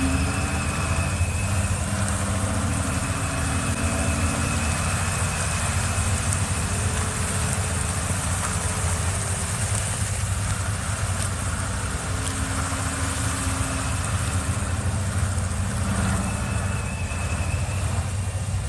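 A heavy machine's engine running steadily with an even, low drone. A faint higher whine comes and goes over it.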